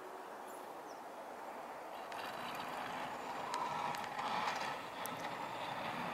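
Scania P94D 220 plow truck approaching with its front plow blade pushing snow along the road: a steady scraping, rushing noise with the diesel engine under it, getting louder from about two seconds in.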